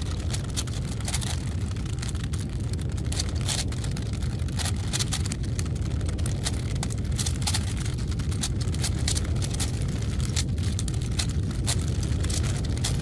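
A Rubik's cube clacking rapidly as it is turned at very high speed, many irregular sharp clicks over a steady low rumble, while the cube heats up and strains close to breaking apart.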